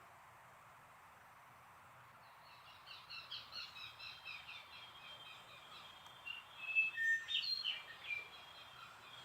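Songbird chirps from a sound-effects track, played in reverse. Quick repeated chirps start about two and a half seconds in over faint hiss, and louder, more varied calls follow near the seven-second mark.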